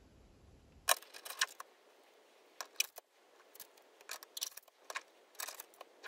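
Tarot cards being handled: a dozen or so irregular, sharp, crisp clicks and snaps.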